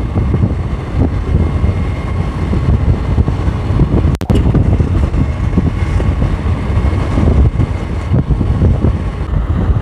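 Scooter on the move: steady low rumble of its engine mixed with wind buffeting the microphone. There is a brief click about four seconds in.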